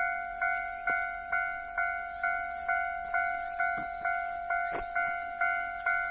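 Japanese level-crossing warning bell ringing, an evenly repeated electronic ding at about two strikes a second, each strike dying away before the next.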